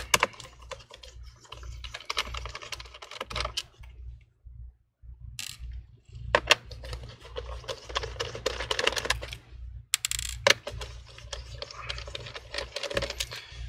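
Small Phillips screwdriver turning screws out of a laptop's bottom case: a run of small clicks and scratches. There is a near-quiet pause about four seconds in, and a few sharper clicks around ten seconds in.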